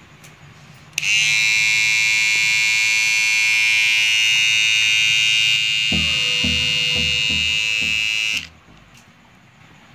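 Philips BT1212/15 cordless beard trimmer switched on, its motor and blades giving a loud, steady, high buzz for about seven seconds before it is switched off abruptly. Over the last couple of seconds of the buzz, low knocks come about three times a second.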